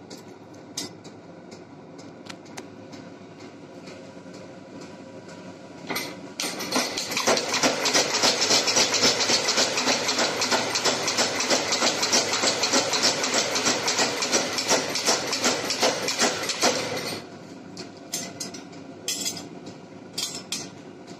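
Power hammer pounding a hot Damascus steel billet. A rapid, continuous run of heavy blows starts about six seconds in and stops abruptly about eleven seconds later. Before and after it there is a quieter steady hum with a few light knocks.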